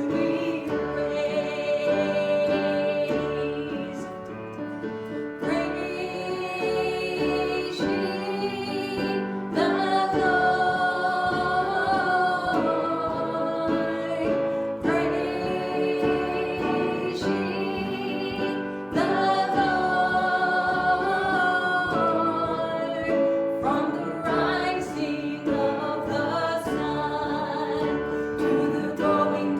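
Gospel chorus sung with guitar accompaniment, the voices holding long notes.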